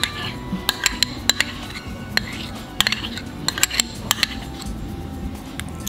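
Irregular light clinks and taps of ceramic crockery as a small cup is tipped against a bowl to pour out thick condensed milk.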